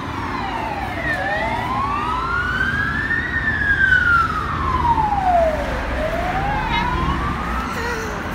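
Emergency vehicle siren wailing, a slow tone sliding down, up, down and up again, over the rumble of road traffic.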